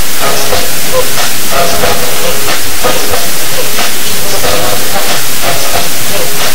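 Loud, steady hiss of an overloaded microphone, with faint pitched fragments and faint ticks about twice a second beneath it.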